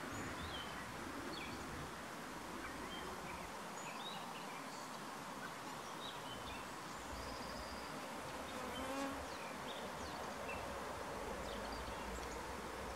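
Garden ambience: a bee buzzing, loudest briefly about nine seconds in as it passes close, over a steady outdoor hiss with scattered short bird chirps.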